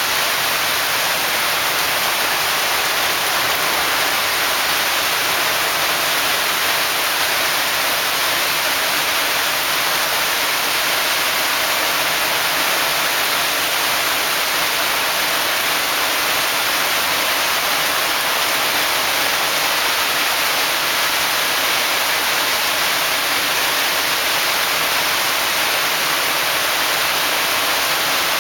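Heavy downpour of rain falling in a loud, steady hiss onto wet patio tiles and a flooded garden bed.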